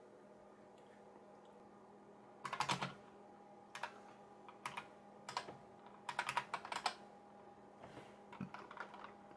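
Computer keyboard keys being typed in short runs, entering commands at a DOS prompt, over a faint steady hum.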